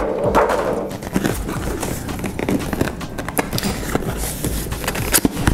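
Cardboard packaging being handled: the lid of a riflescope box lifted off and a smaller cardboard inner box picked up, with scraping, rustling and irregular knocks and clicks.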